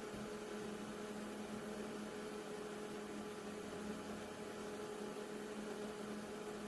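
Small electric fan motor of a mini evaporative air cooler running steadily: an even hum with a faint airy hiss.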